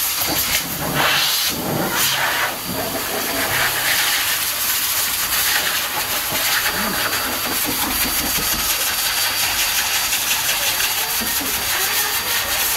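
High-velocity dog dryer blowing air through its hose onto a Labrador's coat to dry it after a bath: a steady, loud rushing hiss, with a few brief surges in the first few seconds.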